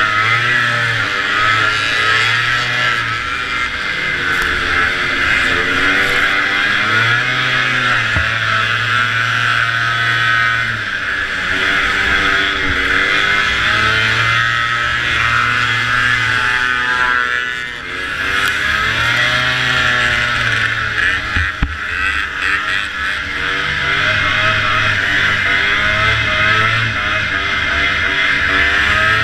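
Vintage two-stroke racing snowmobile engine at speed, its pitch climbing and falling over and over as the throttle is worked. The engine backs off briefly about two-thirds of the way through, then pulls again.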